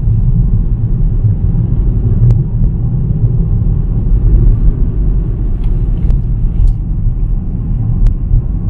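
Steady low rumble of a car driving on the road, heard from inside the cabin, with a few faint clicks.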